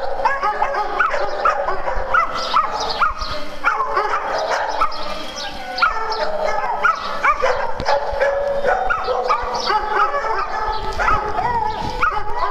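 A pack of dogs barking and yipping in play, many voices overlapping with no pause.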